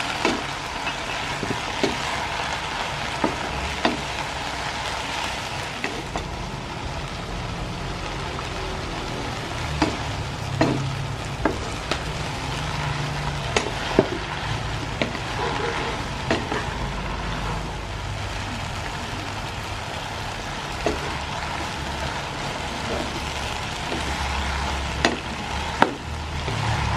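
Morning glory (water spinach) sizzling as it is stir-fried in a non-stick pan, with a wooden spatula tossing it and knocking sharply against the pan now and then.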